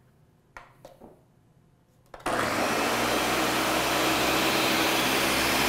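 Countertop blender switching on suddenly about two seconds in and then running steadily, blending a liquid eggnog mixture of almond milk, eggs, spices and honey. A couple of light knocks come before it starts.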